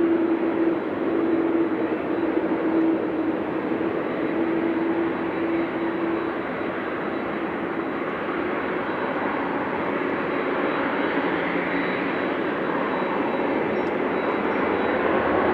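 Jet engines of a twin-engine Boeing widebody airliner at takeoff thrust: a loud, steady spread of engine noise with a humming tone that breaks off about six seconds in.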